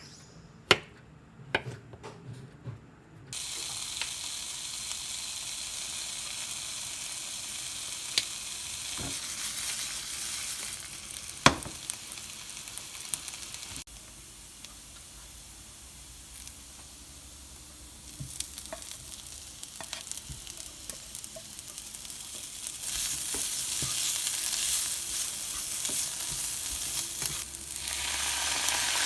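A few sharp knocks, then food starts sizzling in a hot frying pan about three seconds in, with occasional sharp clacks. The sizzle eases off for a few seconds in the middle and comes back louder near the end.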